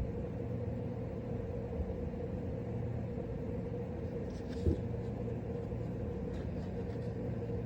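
Steady low background hum with a constant tone, broken once by a short knock about halfway through, with a few faint light ticks around it.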